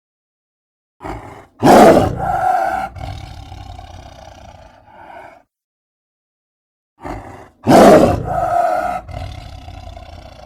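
Kamen Rider Ryuki dragon monster roar sound effect, played twice: each time a short cry, then a loud roar that trails off in a long wavering tail over about three seconds.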